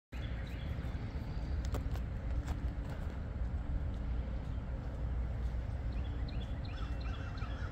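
Outdoor ambience: a steady low rumble with a few faint clicks in the first few seconds, and small birds chirping repeatedly over the last couple of seconds.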